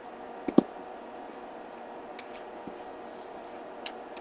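Two quick light knocks of kitchen utensils about half a second in, then a few faint ticks, over a steady low background hum.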